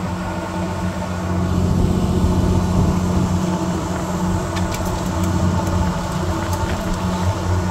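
Fishing boat's engine running steadily, a low drone, with a few light clicks in the second half.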